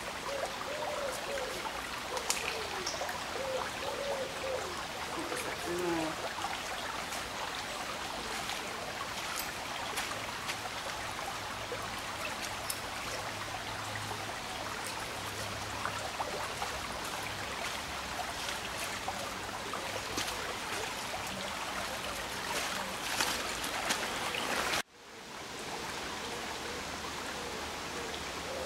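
Steady rushing of flowing water, like a stream, with a few faint clicks. The sound drops out abruptly about 25 seconds in and then returns.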